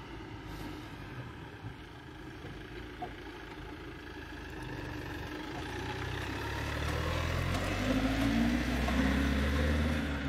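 A motor vehicle's engine running nearby, a low steady hum that grows louder over the second half and drops away near the end.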